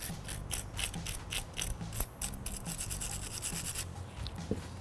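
Hand wire brush scrubbing rust off a metal brake pad slide clip in quick back-and-forth scratchy strokes, about four a second, stopping near the end.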